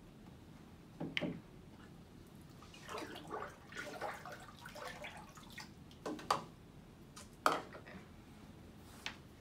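Water in a glass aquarium stirred by hand, with small splashes and drips for a couple of seconds in the middle, mixing in freshly poured milk. A few sharp knocks of objects being set down and picked up on the table come before and after.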